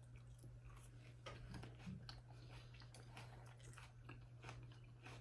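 A person chewing food close to the microphone: faint, irregular crisp mouth clicks and crunches, over a steady low electrical hum.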